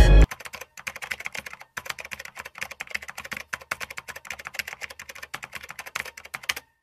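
A quick run of light, irregular clicks, several a second, with a brief pause about a second and a half in; a typing-like clicking sound effect.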